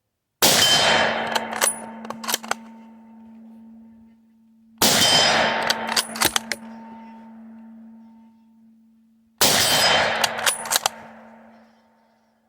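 Three shots from a Remington 1903-A3 bolt-action rifle in .30-06, about four and a half seconds apart. Each is followed by a few sharp clicks and a steel target gong ringing on a steady tone that slowly fades.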